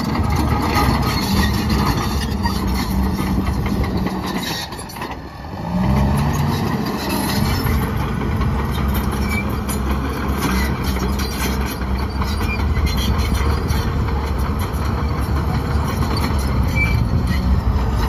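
New Holland D95B XLT crawler dozer's diesel engine running under load as it pushes rock and dirt, with clatter from the tracks and rubble. About five seconds in the engine note dips briefly, then comes back up and holds steady.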